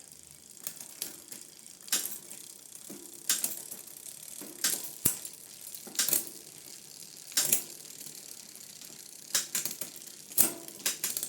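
Bicycle rear wheel, chain and derailleur being worked into place by hand: sharp metallic clicks and knocks at irregular intervals, about one a second, with ratchet-like clicking.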